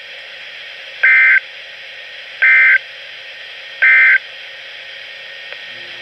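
NOAA Weather Radio SAME end-of-message data bursts, played through a weather radio's speaker: three short, identical buzzy bursts about a second and a half apart, over steady radio hiss. They mark the end of the winter storm watch broadcast.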